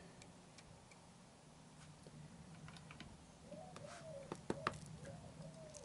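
Faint small metallic clicks and taps as the side-stand return spring of a Yamaha XJ900S is handled and hooked onto its bracket, over a low steady hum. A faint repeating warbling tone joins in about halfway through.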